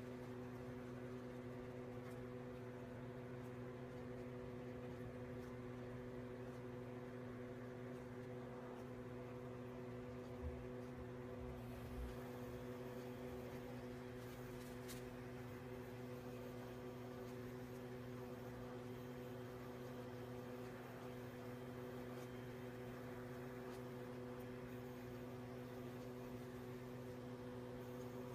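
Steady electrical hum made of several low, even tones over a faint hiss, with two soft low thumps about ten and twelve seconds in.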